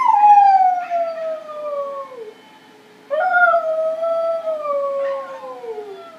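Malamute howling: two long howls, each sliding down in pitch. The first starts high and falls steeply; the second begins about three seconds in.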